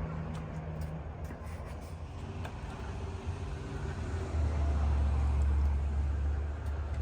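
A vehicle engine running steadily with a low hum, growing louder about four seconds in.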